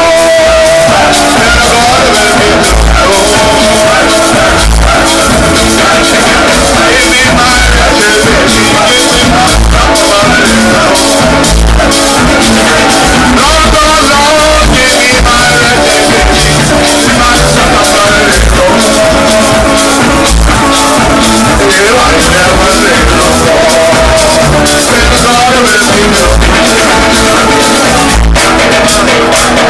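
Live rake-and-scrape band playing: electric guitar, electric bass and a hand-played drum keeping a steady beat, loud throughout.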